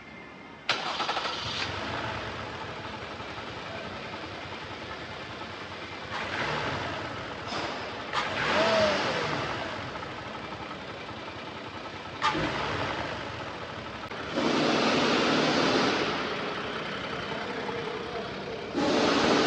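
Car engine starting about a second in, then running with several surges of louder noise.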